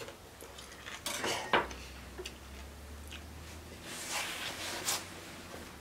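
Kitchen knife slicing a dill pickle on a plastic cutting board, with a few sharp knocks of the blade on the board, the loudest about a second and a half in. Near the end, softer crunching as a pickle piece is bitten and chewed.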